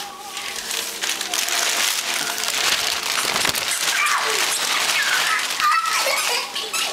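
Wrapping paper crinkling and rustling loudly as it is crumpled and tugged about, with a few short high-pitched vocal cries near the middle and end.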